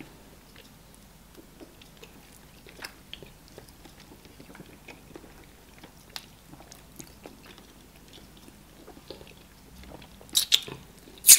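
People eating starch fufu with banga soup by hand: soft chewing and wet mouth sounds with scattered small clicks, and a few louder, sharp mouth sounds near the end.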